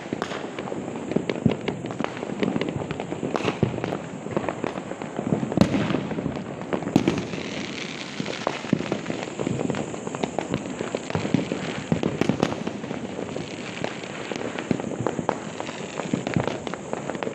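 Firecrackers and fireworks going off in a dense, continuous crackle of many small bangs, with a few louder bangs about five and a half, seven and twelve seconds in.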